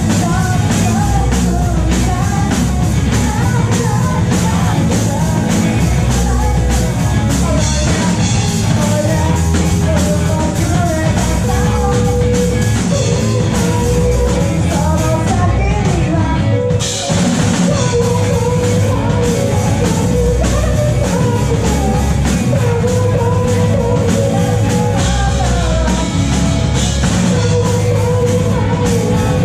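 Rock band playing live, a singer over drums, bass and guitar, with a brief break in the music a little past halfway.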